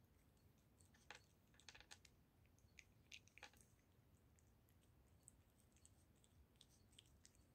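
A cat chewing raw goose neck: faint, sharp clicks and crunches of its bites, close together from about a second in to three and a half seconds, then sparser.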